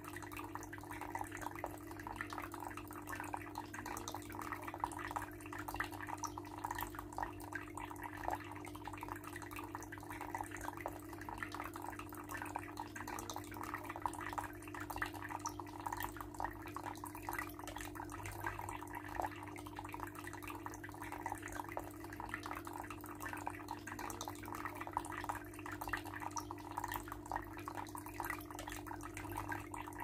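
Water trickling down a small homemade tabletop rock-waterfall fountain and splashing into its basin, with a constant patter of drips. A steady low hum runs underneath.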